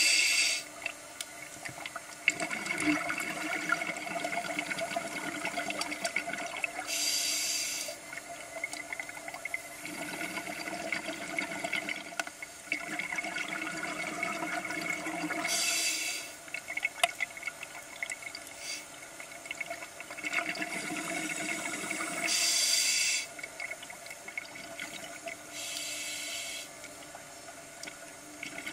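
Scuba regulator underwater: bursts of exhaled bubbles rushing and gurgling every several seconds, with a quieter steady hiss and hum in between.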